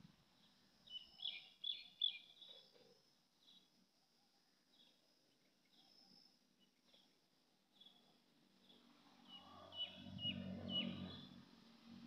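Faint house sparrow chirps: a quick cluster of short, high chirps about a second in, and another near the end over a faint low rumble.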